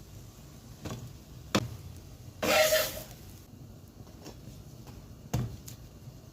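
A few light knocks and clicks of kitchen handling, with one short, louder noisy burst about two and a half seconds in.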